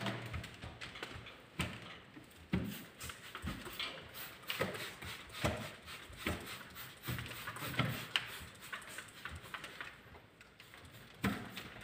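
Hand squeegee working across a large wet, soapy glass pane being cleaned for tinting: short irregular strokes and knocks, one or two a second, pausing briefly near the end.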